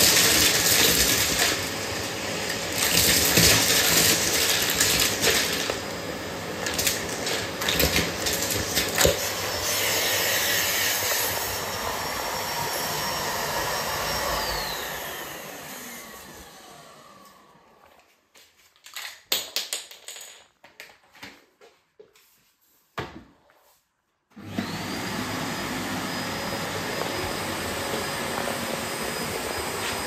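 Bosch BGS21X320 bagless canister vacuum cleaner running at full suction, with sharp clattering as Lego pieces rattle up the nozzle and hose. About halfway through it is switched off and the motor winds down with a falling whine. A few clicks and knocks follow while it is off. Near the end it is switched back on and the motor spins up with a rising whine.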